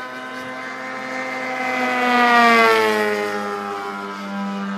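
Radio-controlled model aircraft flying past, its motor note swelling to a peak about two and a half seconds in and falling in pitch as it passes, then carrying on steadily at the lower pitch.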